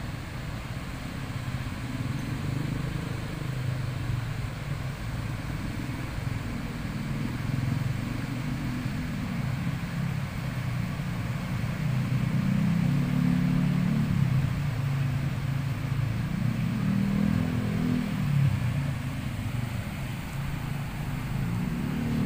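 Swollen, fast-flowing floodwater rushing through a river weir: a continuous low rumble with a hiss over it, growing somewhat louder about halfway through.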